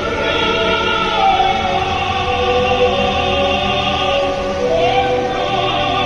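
Music with a choir singing long held notes.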